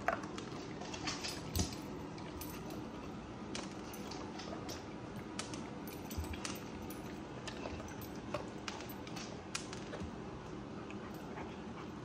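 A dog's claws clicking and tapping irregularly on a tiled floor as it shifts about and sniffs, with light jingles from its collar and harness hardware.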